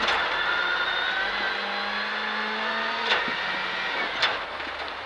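Rally car engine heard from inside the cabin, running under power at fairly steady revs. There are two sharp knocks, about three and four seconds in, and after them the engine note drops away.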